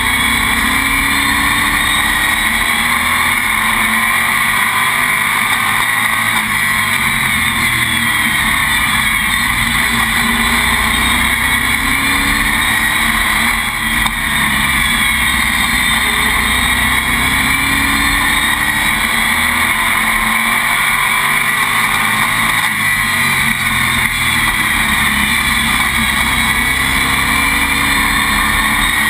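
Stock car's engine at race pace, heard from inside the cockpit: loud and steady, its pitch falling and rising as the car lifts for the turns and accelerates down the straights.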